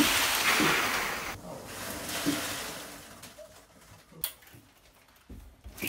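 Styrofoam packing peanuts pouring out of a tipped cardboard box and showering onto the floor: a rushing rustle that fades out over about three seconds. Two short clicks follow later.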